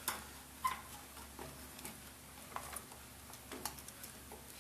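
Light, irregular clicks and taps from handling the opened microwave's metal casing and parts, over a faint steady hum.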